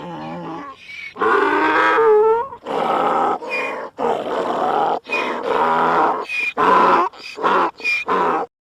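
Donkey braying: a soft, wheezy start, then a run of loud, pitched hee-haw calls with short breaks, the calls growing shorter and quicker toward the end before it stops abruptly.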